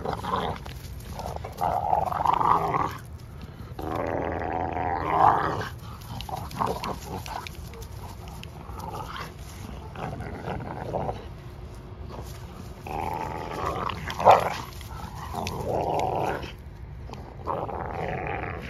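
Two American bully dogs growling in bursts of a second or two as they play tug-of-war over a rope toy, with one short, sharp louder sound about fourteen seconds in.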